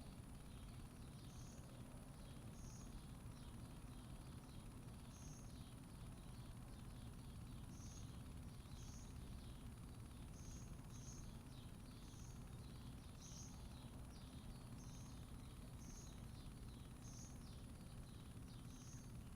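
Faint outdoor ambience: a bird chirping over and over, short falling chirps about once a second. Underneath are a steady low rumble and a thin, steady high-pitched whine.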